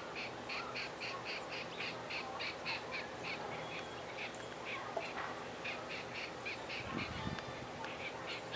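Grey crowned crane chicks peeping: a steady run of short, high peeps, about three a second, with a brief pause about five seconds in.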